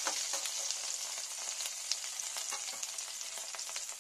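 Nigella seeds frying in hot mustard oil in a stainless steel kadai: a steady sizzle with many small pops. A steel spatula stirs through the oil at first.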